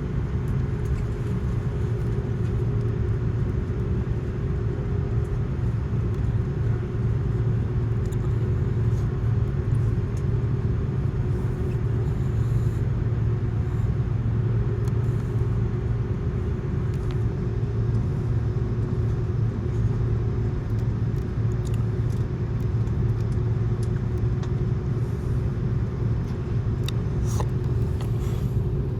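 Steady drone inside the cabin of an Airbus A330-200 airliner, with a low rumble and a constant hum that neither rises nor falls. A few faint ticks come near the end.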